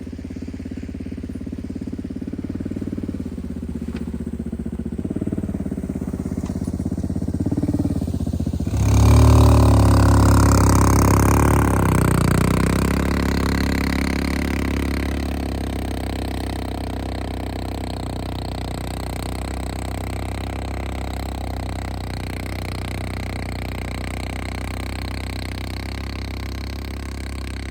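1992 Honda Fourtrax ATV engine running while plowing snow down a hill. It runs steadily, then gets suddenly louder with a rush of added noise about nine seconds in, and eases back to a steady run.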